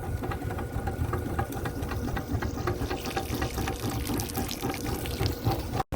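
Motorized drain snake running with a steady hum while its cable turns in the drain line, with many small ticks and rattles; the sound cuts out briefly near the end.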